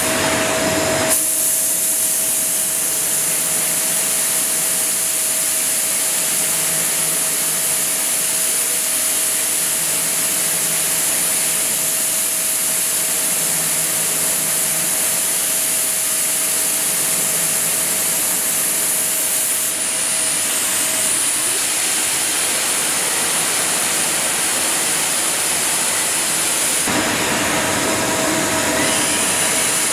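CNC lathe turning an S45C (1045) carbon steel bar with a carbide turning insert: a steady hiss with a steady mid-pitched whine under it. The sound shifts about a second in, fades its whine around twenty seconds in, and brightens near the end.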